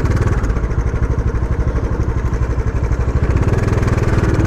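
Bajaj Dominar 400's single-cylinder engine running steadily with a noise from the cylinder head, which a technician put down to a failed timing-chain tensioner.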